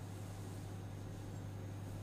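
Steady low hum under a faint even hiss: room tone, with no distinct event.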